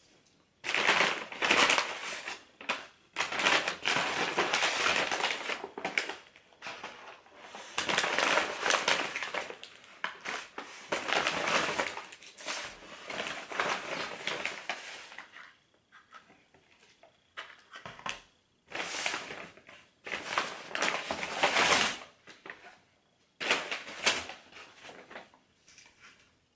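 Paper fast-food packaging rustling and crinkling close to the microphone, in several long bouts with short pauses between them.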